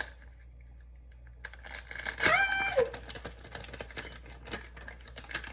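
Light clicking and tapping of baking containers and utensils, busiest about two seconds in. A short high-pitched squeal that bends down at its end sounds over the clicks at that moment.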